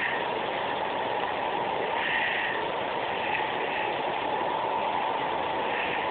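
Steady background noise, even and unbroken, with no distinct events.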